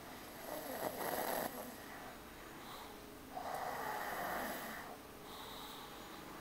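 A man snoring heavily in his sleep: two long rasping snores about three seconds apart, with quieter breathing between them.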